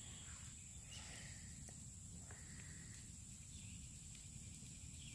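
Faint outdoor ambience: a steady high-pitched drone, a low rumble, and a few faint short chirps and clicks.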